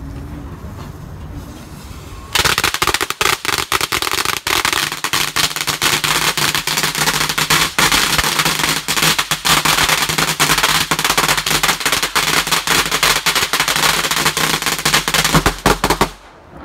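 A long string of firecrackers going off inside a small brick burner tower: a dense, rapid crackle of bangs that starts suddenly about two seconds in and stops abruptly near the end.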